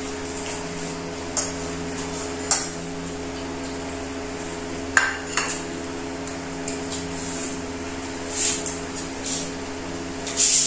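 A few sharp clinks and taps of metal kitchen utensils against kitchenware, spread out over several seconds, over a steady low hum.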